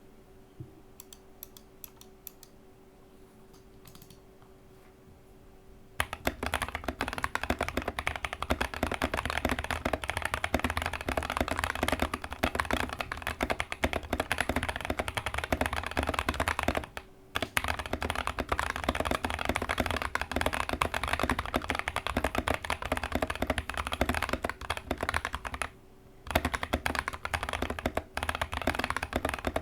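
Fast typing on a GK61x mechanical keyboard fitted with Gazzew Boba U4T tactile switches: a dense, continuous run of key strikes. A few faint clicks come first, the typing starts about six seconds in, and it stops briefly twice.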